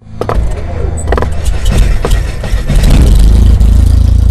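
Logo-intro sound effects: a few sharp hits in the first two seconds over a deep rumble that swells and then holds loud from about three seconds in.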